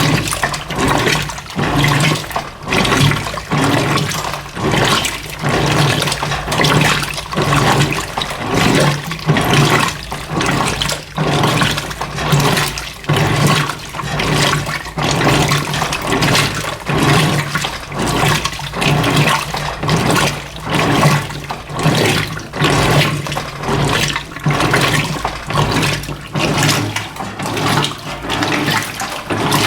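Electrolux LF90 washing machine agitating a load of rugs in water: sloshing that surges about once a second over a steady motor hum.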